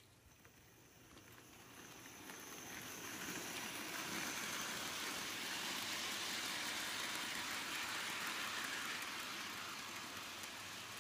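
Model steam locomotive and its coal wagons running along the track: a steady rolling rattle of the wheels on the rails with the motor's whir, building as the train nears, loudest in the middle and easing slightly near the end.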